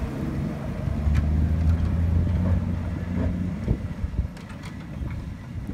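Land Rover Series 1's four-cylinder engine running as the vehicle drives away, its note fading with distance.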